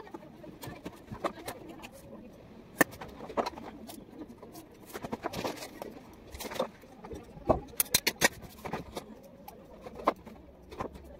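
Irregular light knocks and clicks of plastic pipe being handled and set against a brick wall during pipe fitting.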